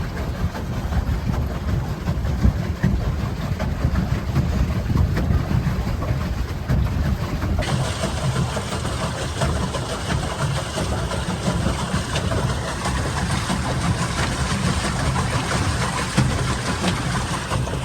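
Steady low engine rumble of a vehicle, with noise spread over it; a brighter hiss joins in about seven and a half seconds in.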